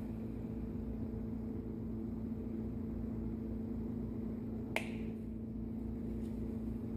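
A steady low hum made of several fixed tones, with a single sharp click about five seconds in.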